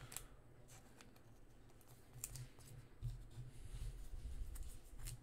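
Mosaic basketball trading cards being flipped through by hand: faint light clicks and taps of card edges, with soft low bumps of handling starting about halfway through.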